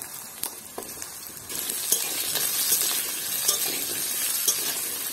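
Diced potatoes sizzling as they fry in hot mustard oil in a metal kadai, stirred with a metal spatula that clicks against the pan now and then. The sizzling gets louder about a second and a half in.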